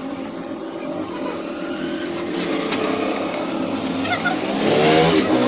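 A vehicle engine running steadily and growing gradually louder, with a few faint light clicks as a screwdriver works on a small metal motor fan.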